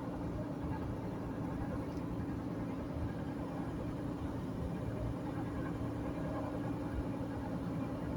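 Car cruising on a highway, heard from inside the cabin: a steady engine drone with tyre and road noise underneath.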